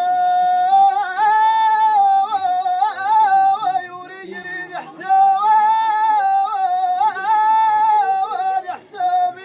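A high voice singing long held notes with small ornaments, in Atlas Amazigh style, in two long phrases with a short break about four seconds in.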